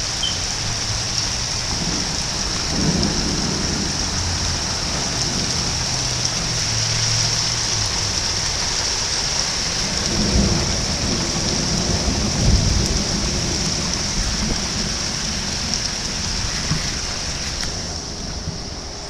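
Steady rain hiss with thunder rumbling twice, a roll starting about three seconds in and a second, slightly louder one about ten seconds in.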